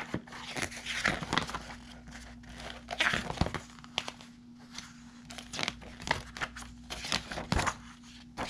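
Pages of a glossy paper booklet being turned and flipped by hand: a series of short papery swishes and rustles, a few seconds apart.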